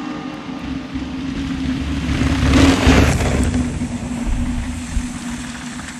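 Mountain bike on 29-inch wheels bombing down a dirt and gravel track past the camera: a rushing roar of knobby tyres and wind that swells to its loudest about two and a half to three seconds in, then fades away, with a steady low hum beneath it.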